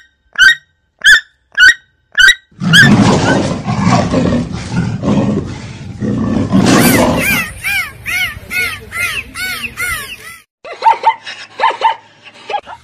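A sequence of different animal calls. First come short high calls about twice a second, then a loud, rough call lasting about five seconds, then a quick run of rising-and-falling calls, and short lower calls near the end.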